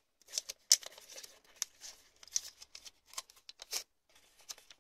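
Origami paper rustling and crinkling in the hands as a flap is creased and folded: irregular short, crisp crackles, with a brief pause about four seconds in.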